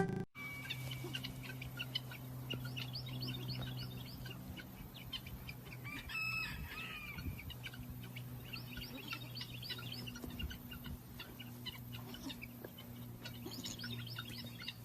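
Chickens calling, with one drawn-out call about six seconds in, and repeated clusters of quick high chirps, over a steady low hum.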